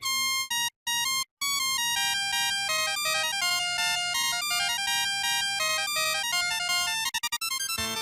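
Electronic alarm tones: about three short high beeps, then a fast synthesized melody of stepping, buzzy notes like a ringtone. Shortly before the end it stutters in a few rapid clicks, and a lower, fuller tune begins.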